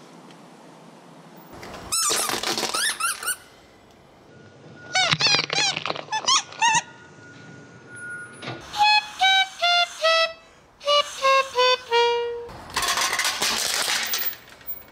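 Toys squashed under a car tyre: crackling, crunching bursts and high squeaks, including a string of short notes that step down in pitch.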